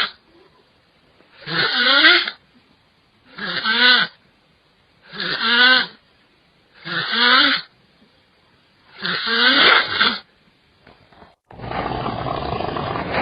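A person snoring: loud, pitched snores about two seconds apart, five in full plus the tail of one at the start, with silence between breaths. Near the end a different steady, rough noise takes over.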